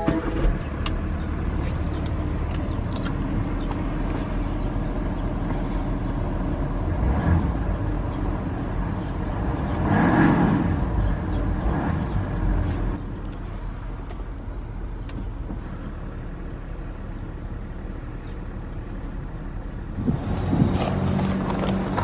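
A 2023 BMW X5 diesel engine starting cold and idling. Its sound swells briefly about ten seconds in, then settles to a quieter steady idle, and grows louder again near the end as heard closer to the exhaust.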